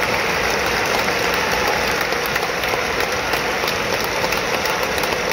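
Steady din of a packed stadium crowd, a dense unbroken roar with no clear tune or voices standing out.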